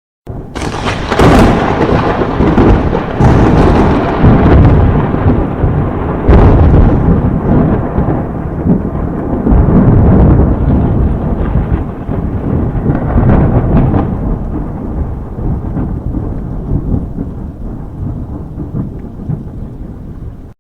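Thunder: a sharp crack about a second in, more cracks around three and six seconds in, then a long rolling rumble that slowly fades and stops abruptly at the end.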